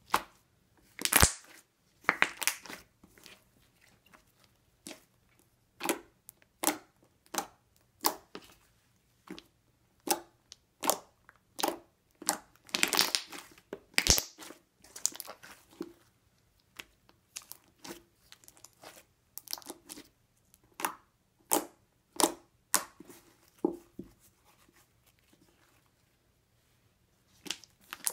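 Green slime made from Elmer's school glue and borax solution being squished, stretched and poked by hand, giving irregular sticky clicks and pops, with a quiet pause a few seconds before the end.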